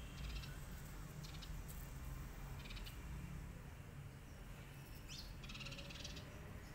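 Birds calling in short, high, buzzy chirps several times, with one falling call about five seconds in, over a steady low rumble.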